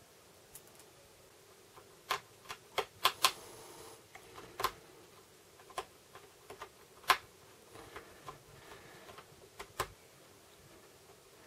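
Sharp, irregular clicks and taps of a metal hard drive caddy being pressed and shifted into a Dell Inspiron 1720 laptop's drive bay, with a quick cluster about two to three seconds in and the loudest click about seven seconds in.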